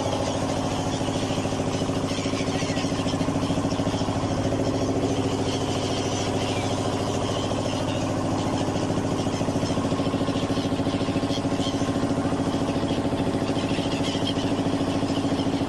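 Motorboat engine running steadily at low revs, with an even, rapid firing rhythm.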